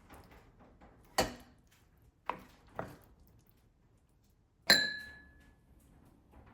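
Kitchenware clattering: four separate knocks of dishes or utensils being handled, the last and loudest a clink that rings briefly.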